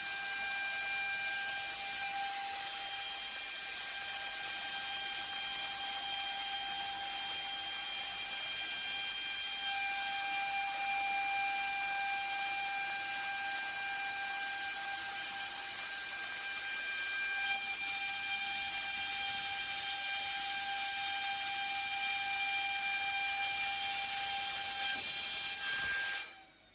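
Rotary CNC router milling a plywood rotary die board: the spindle runs with a steady high whine and cutter hiss, its pitch stepping slightly now and then. The sound cuts off suddenly near the end.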